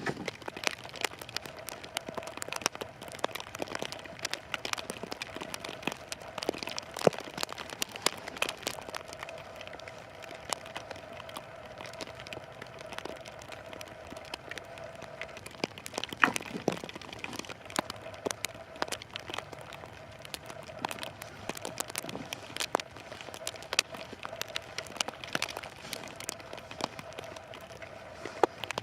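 Irregular crinkling and crackling with many sharp clicks and cracks, from sticks and plastic wrap being handled.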